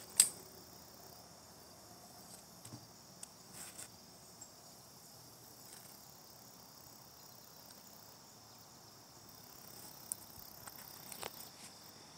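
Faint, steady chorus of crickets chirping. A single sharp click sounds just after the start, and a few softer clicks come later.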